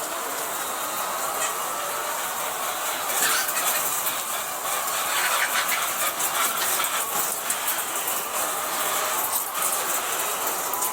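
Poultry-house chain feeder running: a steady mechanical clatter with many small clicks and rattles.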